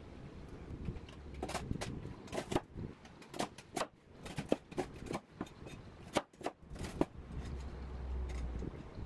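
Chinese cleaver chopping crisp toasted bread (crostini) on a bamboo cutting board: a run of irregular sharp knocks and crunches. Near the end, a low scrape as the blade gathers the pieces off the board.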